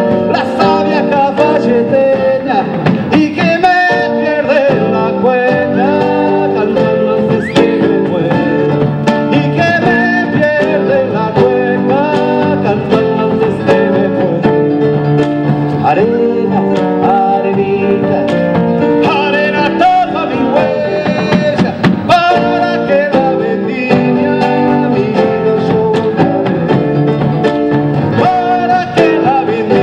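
Band playing a Latin American song: singing over guitars, bass and percussion, steady and continuous.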